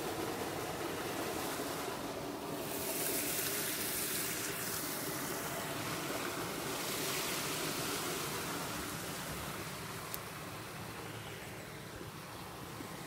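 River water rushing steadily. A brighter hiss swells about two seconds in and eases off toward the end.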